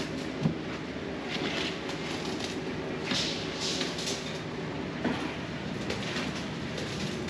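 Steel wheelbarrows loaded with wet concrete being wheeled and tipped over a plywood floor: a steady rolling noise, with a sharp knock about half a second in and another about five seconds in.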